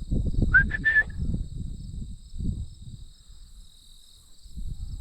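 Insects, crickets by their steady pitch, trill continuously in two high-pitched bands. Low rumbling noise, loudest over the first couple of seconds, lies under them. About half a second in comes a brief rising, then level, whistle-like chirp.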